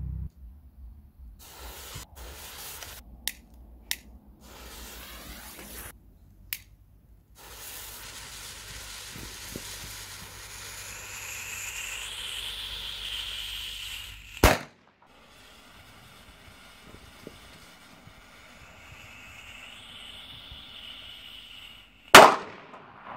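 Firecracker fuses sizzling on a wooden stump, broken by a few small pops, then two sharp bangs as firecrackers go off, about two-thirds through and again near the end, the second one louder.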